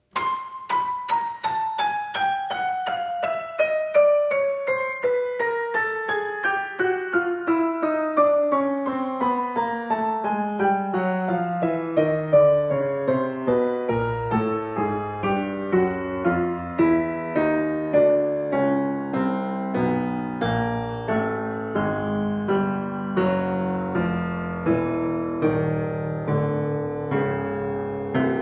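Steinway Model L grand piano played in a long, fast descending run of rapid notes from the treble down into the bass, then quick notes continuing in the low register.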